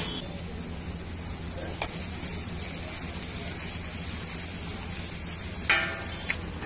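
Steel spatula chopping and scraping chopped onion and tomato on a flat iron griddle, with a few light clicks and one loud grating scrape near the end, over a steady low hum.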